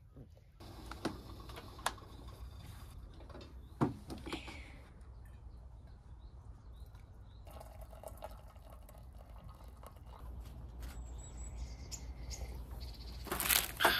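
A few faint clicks and knocks, then near the end a plastic snack packet crinkling as it is handled.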